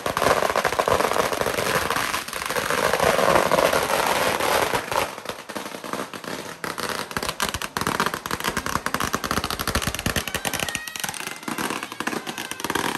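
Strings of firecrackers going off in a continuous rapid crackle of sharp bangs, loudest in the first few seconds.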